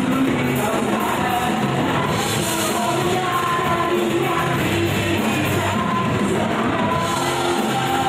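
Rock band playing live at full volume, with a woman singing over drums and guitars.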